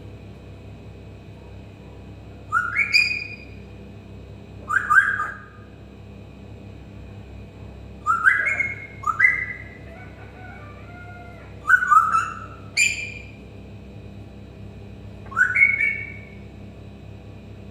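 Pet parrot mimicking a cat: about seven short, pitched meow-like calls, each around half a second long and a few seconds apart, two of them in quick pairs.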